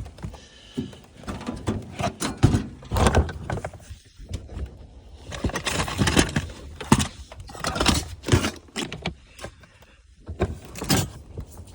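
Camping gear being rummaged through and shifted around: irregular knocks, clatter and rustling.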